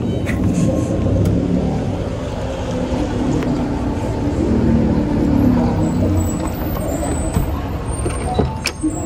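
Mitsubishi Canter minibus diesel engine idling steadily, being warmed up while parked. A couple of light knocks near the end.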